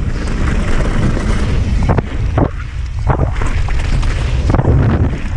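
Wind buffeting the action camera's microphone as a YT Capra mountain bike rolls fast down a gravel trail, tyres running on loose gravel. Several knocks and rattles from the bike hitting bumps, a few about halfway through.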